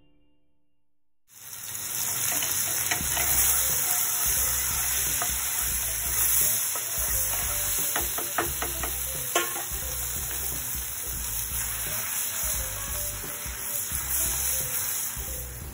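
Food frying in bubbling oil in a non-stick pan, a steady sizzle that starts abruptly about a second in, stirred with a wooden spatula that gives a few sharp clicks against the pan about eight to nine seconds in.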